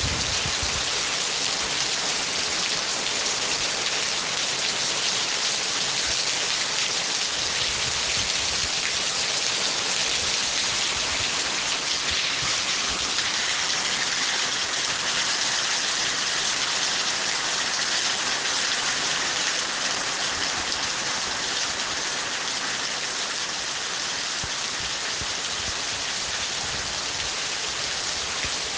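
Rain falling steadily, an even, unbroken hiss of drops.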